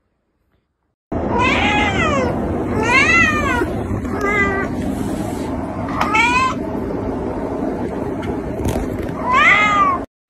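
Orange-and-white cat meowing five times, short high calls that rise and fall, over a steady background hiss starting about a second in.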